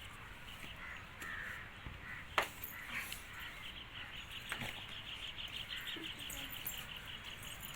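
Birds calling in the background, with a fast run of high chirps lasting about three seconds in the middle. A single sharp click about two and a half seconds in is the loudest moment.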